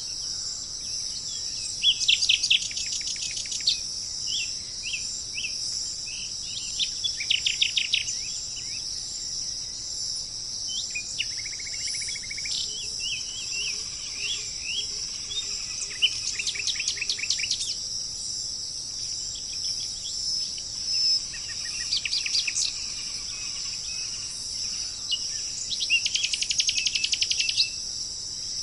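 Forest birds singing: about five bursts of fast trilled song with scattered short chirps between them, over a steady high-pitched insect drone.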